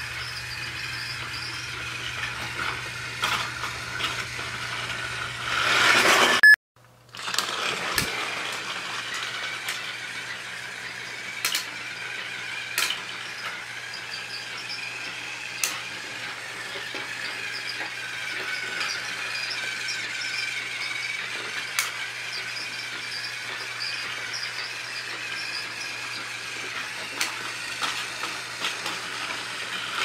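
Battery-operated TrackMaster toy train running on plastic track: a steady whining motor and rattle, its pitch slowly wavering, with scattered clicks. About six seconds in it grows louder and cuts off abruptly for a moment, then the running resumes.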